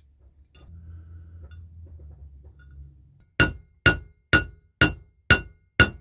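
Hammer striking metal at a jeweller's bench: six sharp blows about two a second, each with a short metallic ring, starting about halfway through.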